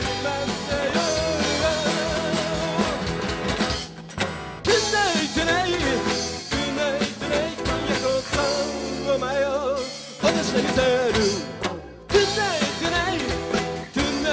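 Live band playing a rock number on two acoustic guitars, electric bass and drums, with a man singing with a wavering vibrato. The music drops out briefly twice, about four and twelve seconds in.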